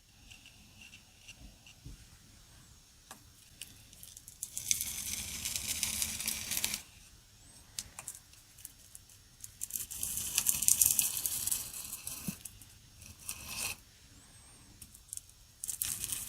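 Steel knife blade being rubbed on coarse 60-grit sandpaper: a hissing scrape in two main stretches of a few seconds each, with quieter pauses between.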